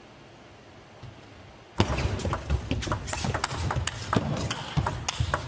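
Table tennis rally: the plastic ball clicks off rackets and the table in quick succession, with thuds of players' feet. It starts suddenly about two seconds in, after a quiet spell while the serve is prepared.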